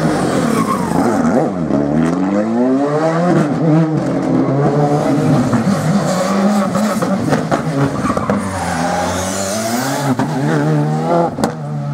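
Rally cars with turbocharged four-cylinder engines braking into a tight tarmac corner and accelerating hard out of it, the engine note dropping and then climbing through the revs, with a few sharp cracks. A second car, a Škoda Fabia R5, follows through with its revs rising again near the end.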